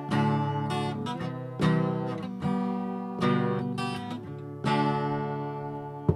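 Acoustic guitar being strummed, a chord about every one and a half seconds, each left to ring and fade: the instrumental opening of a song, played right after a retuning.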